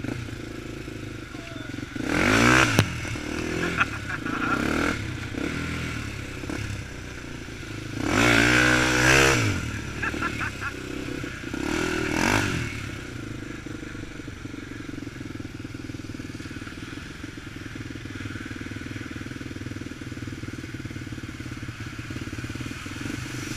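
Honda 400EX ATV's single-cylinder four-stroke engine running at low speed. It is revved up three times, briefly about two seconds in, longer around eight to nine seconds, and again at about twelve seconds, then runs steadily.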